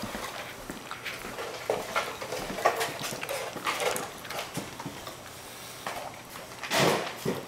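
A small dog eating from a stainless steel bowl: a run of short crunches and clinks as it chews its food, with one louder, longer noisy burst near the end.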